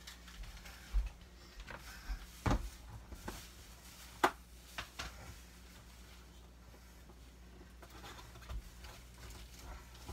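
Scattered knocks and clicks of things being handled and moved about in a kitchen, the sharpest a single click about four seconds in, growing sparser after that, over a faint steady low hum.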